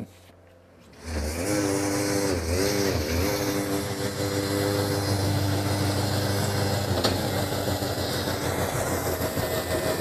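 Compact loader's engine running steadily as it drives a MUSKOX 22-78 two-auger snowblower attachment forward through snow, with a wide rushing noise beneath it. The sound starts about a second in, and the engine's pitch sags briefly two to three seconds in as it takes load.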